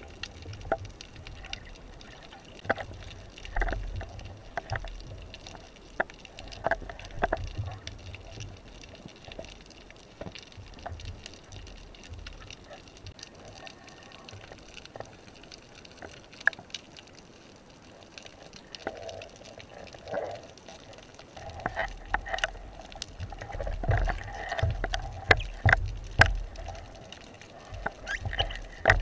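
Muffled underwater sound: water movement and a low rumble with many scattered clicks and knocks from handling a wooden speargun and a speared fish, busier and louder in the last several seconds.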